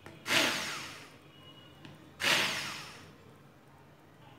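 Electric hand blender pulsed twice, each a short whir of about a second that starts sharply and dies away, as it coarsely blends boiled spinach and dill in a steel pot.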